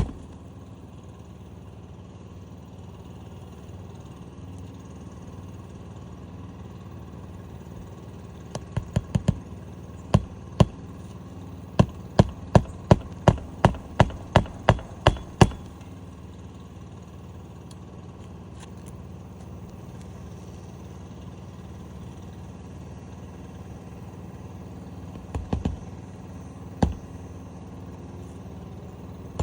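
Hand hammer driving roofing nails into an asphalt shingle: a few light taps, then a run of about a dozen hard strikes roughly two a second, and a few more strikes later. A steady low hum runs underneath.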